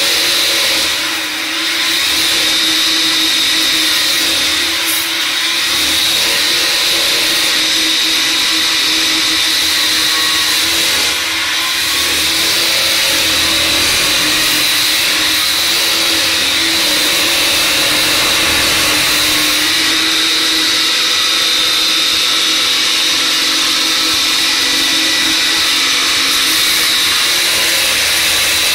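Sugarcane peeling machine running steadily, its scraping head working on a cane stalk fed through it. The sound is a loud, even rushing whirr with a high steady whine over it.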